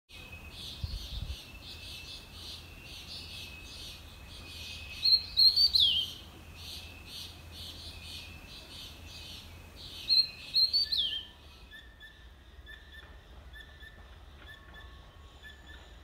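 Wild birds calling: a fast, repeated chirping throughout, with two louder calls that slide down in pitch about five and ten seconds in. About eleven seconds in it changes to quieter, short notes repeated about twice a second.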